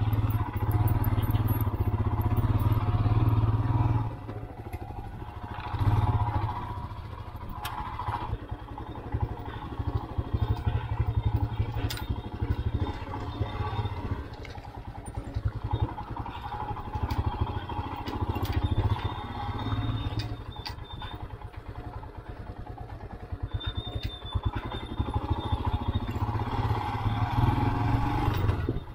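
Royal Enfield Himalayan's single-cylinder engine running as the motorcycle is ridden, loud for the first few seconds, then quieter with repeated surges as the throttle is opened and closed.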